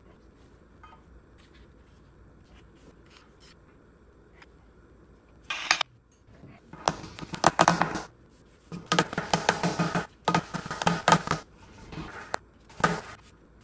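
A few faint clicks, then from about five seconds in, six loud bursts of metal scraping and rattling, each up to about a second long. A pry tool is working at a part of a disassembled Porsche Cayman S engine to separate it.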